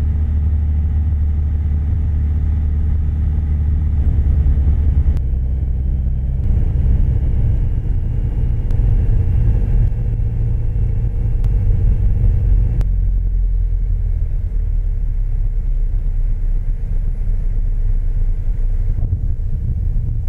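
Single-engine light airplane's piston engine and propeller droning steadily, heard inside the cockpit. The sound changes sharply twice, about five and thirteen seconds in.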